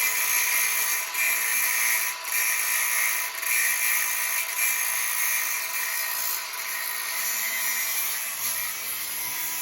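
Handheld power tool running with a steady high-pitched whine, dipping briefly about once a second.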